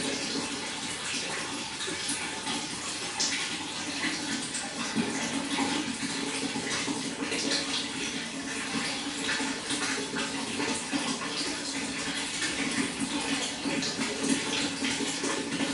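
Flowing water splashing steadily, with many small splashes and drips.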